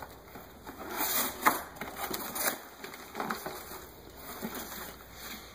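Cardboard shipping box being opened by hand: flaps scraping and creaking open and contents shifting, with a sharp snap about a second and a half in, then rustling as a wrapped package is lifted out.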